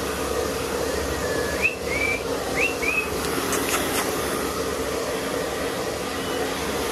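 Hair dryer running steadily on a freshly bathed dog's wet coat. Four short, high whistle-like chirps that rise in pitch sound over it between about one and three seconds in.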